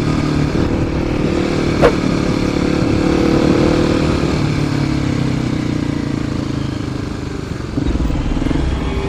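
Motorcycle engine running steadily under the rider while cruising in traffic, with road and wind noise, heard from the bike's own camera; it gets louder about eight seconds in.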